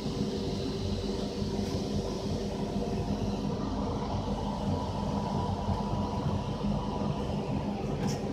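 Steady hum of factory machinery around a fiber laser cutting machine: a low drone with several held tones and a faint hiss above, with a light tick near the end.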